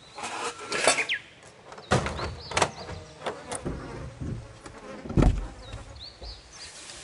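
Clicks and knocks of objects being handled, with a brief rustle at the start and a heavier low thump about five seconds in. A few short high chirps sound twice.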